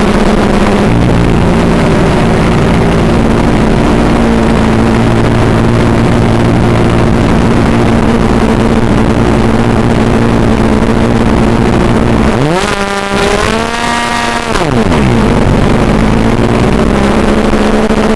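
O.S. 46AX two-stroke glow (nitro) engine of an RC airplane idling steadily, heard through the onboard FPV camera's microphone. About two-thirds of the way in, it revs up for a second or two and drops back to idle.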